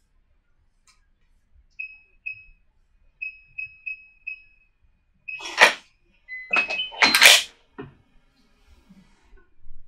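Samsung SHP-DP609 digital door lock's keypad giving six short beeps as a code is keyed in, followed by a confirmation beep, a short tone and two loud mechanical clunks as the lock releases and the door is opened.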